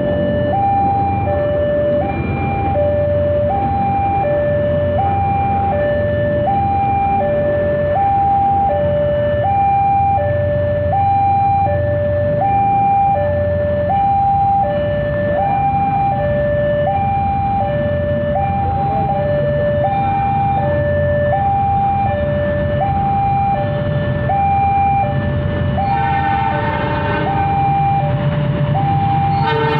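Railway level-crossing alarm sounding steadily, a two-tone signal that alternates high and low about once a second, warning of an approaching train. Near the end a train horn sounds over it.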